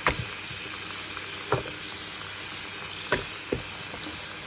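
Tap water running into a basin, a steady hiss, with a few light knocks about a second and a half apart.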